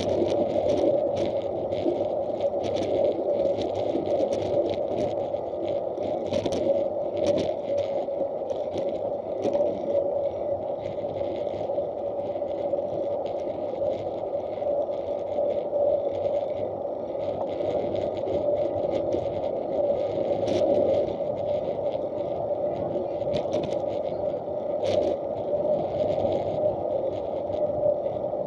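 Steady rolling noise of a ride over an asphalt path, with a constant hum and scattered small clicks and rattles, heard through an action camera's case.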